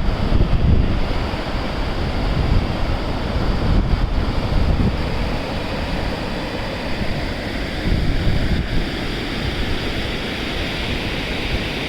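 Wind buffeting the microphone in heavy low gusts, strongest in the first five seconds or so, over a steady rush of falling water.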